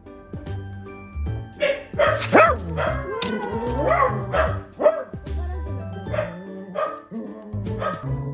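A corgi barking and giving a few drawn-out, wavering calls, strongest about two to four seconds in, over background music with a steady beat.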